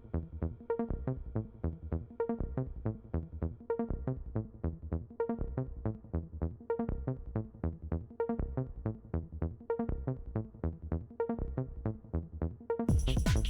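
Background electronic music with a steady beat and a pulsing bass line; about half a second before the end it turns louder and fuller.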